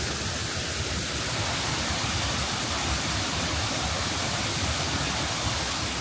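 Shiraito Falls, a broad curtain of many thin streams of water pouring into a pool, making a steady, even rush of falling water.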